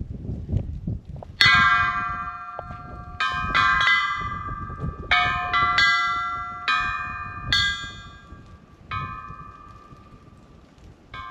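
A single metal bell struck about a dozen times at uneven intervals, each strike ringing on with the same clear pitches and dying away; the strikes grow fainter near the end.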